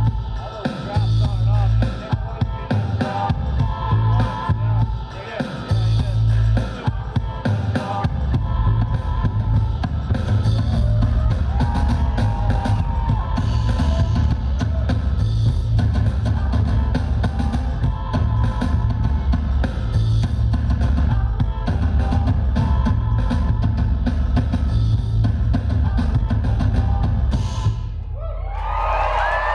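Live rock band playing an instrumental passage with a driving drum kit and heavy bass drum. Near the end the music stops suddenly and the audience starts cheering and whistling.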